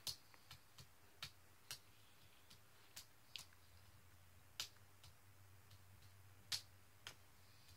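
Near silence broken by faint, irregular clicks and taps, a dozen or so, the clearest about four and a half and six and a half seconds in.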